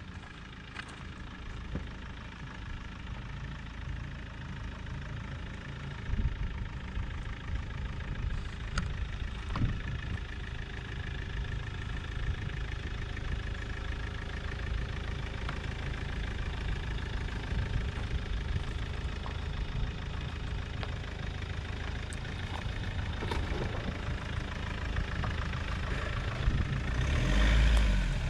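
Mahindra pickup's engine running slowly as the truck crawls down a rutted dirt track, growing louder as it approaches and loudest near the end, with a few short knocks along the way.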